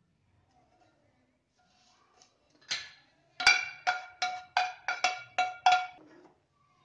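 Metal pan knocked about eight times in quick succession against the rim of a steel cooking vessel to shake out the last of the gravy, each knock ringing with the same clear metallic pitch, after a brief scrape.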